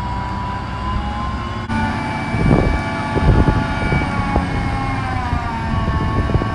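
XCMG QY70K-I truck crane running, its diesel engine giving a low rumble under a steady whine from the crane's drive and hydraulics. About two seconds in, the sound jumps louder and a few low knocks come through, and the whine slides slightly lower near the end.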